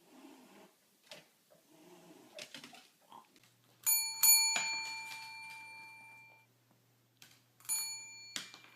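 A small metal bell struck twice in quick succession, ringing on and fading. It is struck once more near the end.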